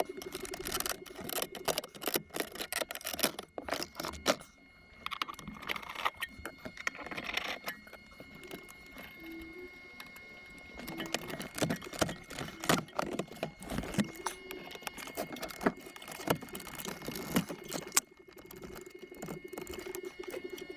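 Plastic dashboard trim around the radio of a Mazda 3 being pried and worked loose with a plastic pry tool: irregular clicks, snaps, scrapes and rattles of plastic, with a couple of brief pauses.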